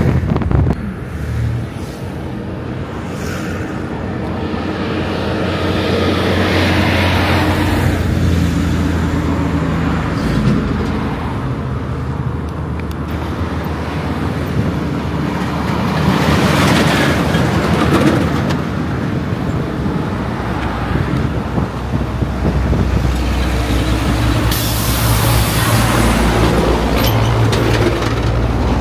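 Highway traffic passing close by: trucks and cars go by one after another, their engine drone and tyre noise swelling and fading with each pass, several times.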